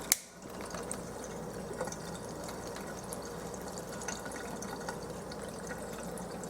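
A thin stream of plain tap water running and splattering steadily, with faint scattered ticks and one sharp click just after the start. There is no popping: water without dissolved hydrogen does not crackle under the flame.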